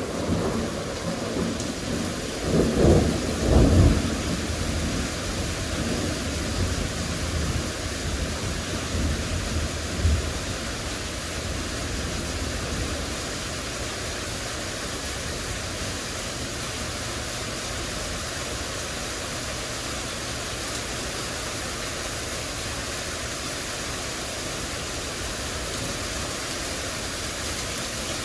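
Heavy rain pouring steadily, with thunder rumbling: two loud low rolls about three to four seconds in and a weaker one at about ten seconds, after which only the even rush of the downpour remains.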